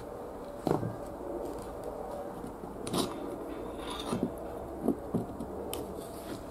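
A thin metal pick scraping and clicking against the metal ferrule and wooden handle of an old screwdriver as it is worked loose. There are several sharp little clicks spread through, among fainter scraping.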